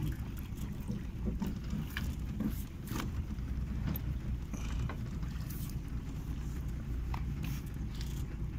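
Small boat being poled through floating logs: a wooden pole and the hull knock and scrape against timber in scattered short knocks over a low steady rumble.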